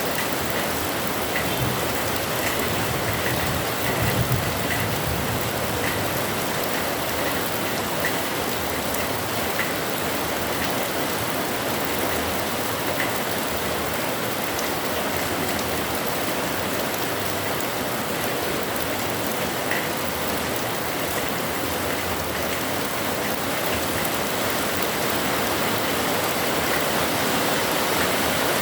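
Heavy rain falling steadily, with a short low thump about four seconds in.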